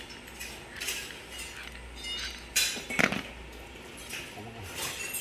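Electric angle grinders being handled on a tile floor: a handful of knocks and clinks as the metal-and-plastic tool bodies are picked up and set down, the loudest two close together about halfway through.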